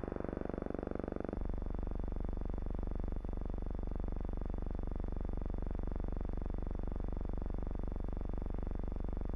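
Steady buzzing drone with a fast, even flutter and a low hum: noise on an archival film soundtrack over silent gun-camera footage. The drone drops in tone at a splice about a second and a half in, and there is a single click about three seconds in.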